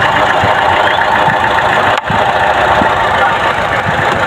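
Chevrolet Trax engine idling unevenly with irregular thumps. It is misfiring on all cylinders, which the mechanic puts down to heavy blow-by from low compression in every cylinder.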